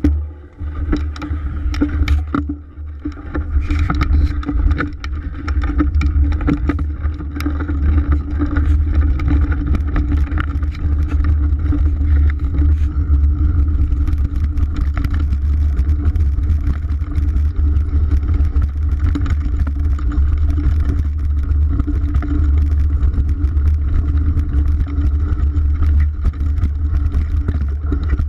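Wind rumbling on the microphone of a handlebar-mounted GoPro Hero 3 while a mountain bike rides fast down a rough dirt trail, with the bike rattling and knocking over the ground. The noise comes in patches over the first few seconds as the bike gets going, then holds steady.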